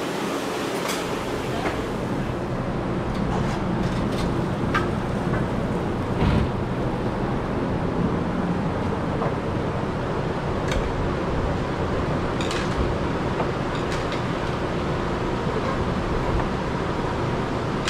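A steady rumbling hum, with a few light clicks and clinks scattered through it.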